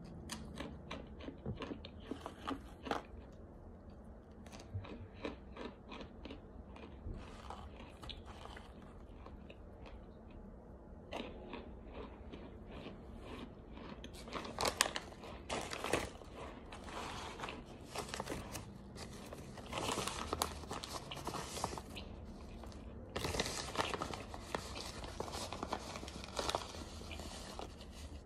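A person biting and chewing chunks of eating starch: a run of short, crisp crunches that come thicker and louder in the second half. The pieces are smooth and still crunchy, though less so than toasted starch. A plastic bag rustles near the end.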